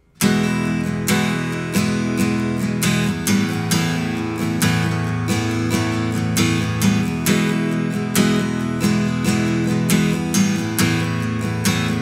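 Seagull Maritime SWS HG acoustic guitar strummed in full chords with a steady rhythm, starting suddenly out of silence just after the start.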